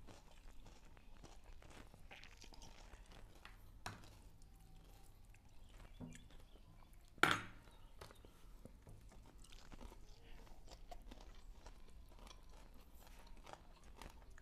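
People chewing and crunching food at a meal of stir-fried water spinach, fried fish and rice, with many small clicks throughout. One louder, sharp clack about seven seconds in.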